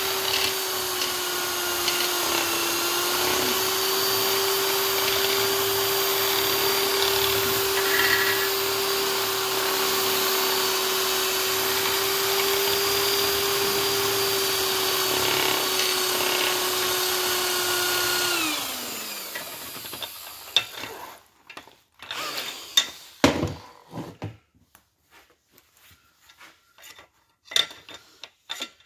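Corded electric drill spinning an abrasive wheel on a long shaft through a Pontiac 400 block's camshaft tunnel, grinding a chamfer on the edge of a cam bearing bore: a steady whine that winds down in pitch after about 18 seconds as the drill is let go. Then scattered knocks and clatter of the tool and shaft being handled, one louder knock a few seconds after the drill stops.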